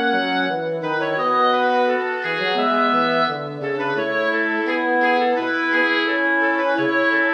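Instrumental background music of held, overlapping notes in several parts, without drums.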